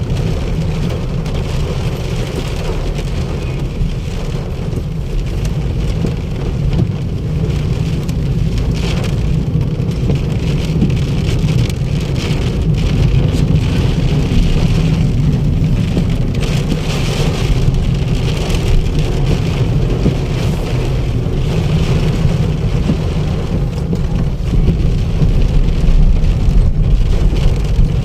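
Heavy rain falling steadily on hard surfaces, with a continuous low rumble underneath; it grows somewhat louder in the last few seconds.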